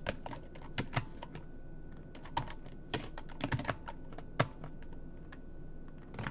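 Typing on a computer keyboard: irregular key clicks, some single and some in quick runs.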